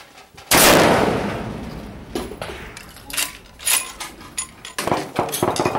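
A single .338 Lapua Magnum rifle shot from a Savage 110 Precision about half a second in, very loud, with a long ringing decay under the covered firing line. After it come several sharp metallic clicks.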